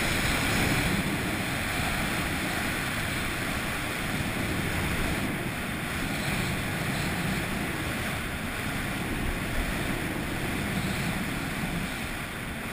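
Rushing wind buffeting an action camera's microphone during a fast downhill run, mixed with the steady hiss of sliding over snow.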